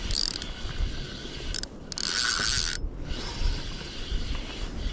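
Spinning fishing reel whirring in two bursts, a short one at the start and a longer one of about a second in the middle, as a hooked fish pulls against the bent rod.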